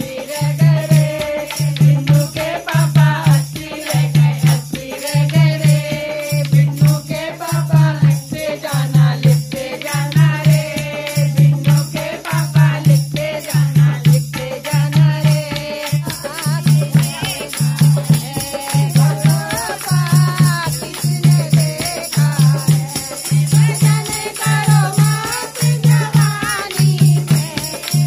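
Devotional kirtan: group singing over a dholak played in a steady beat, with a metal spoon struck against the drum adding a continuous rattling clink.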